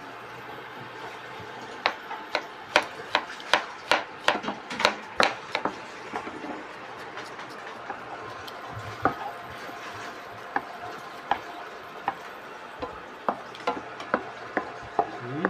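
Kitchen knife chopping onion on a cutting board: a fast run of sharp chops from about two to six seconds in, then scattered knocks, while a wooden spoon stirs onion in butter in a nonstick frying pan.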